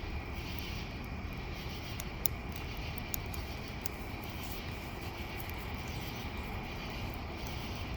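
Steady low rumble outdoors with a few sharp crackles and pops from a wood campfire, the clearest about two and three seconds in.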